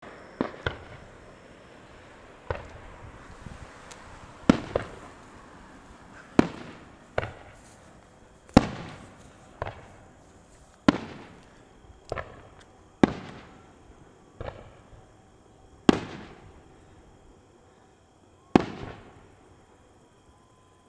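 Fireworks going off: about fifteen sharp bangs at irregular intervals of one to three seconds, each trailing off in a fading echo, with a brief crackle early on.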